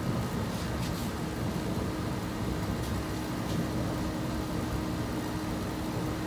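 Master MH-80-OFR 80,000 BTU radiant heater running on diesel just after lighting: a steady rush of burner and fan with a constant low hum. It is throwing more flame than the owner would like, which he puts down to burning diesel instead of kerosene.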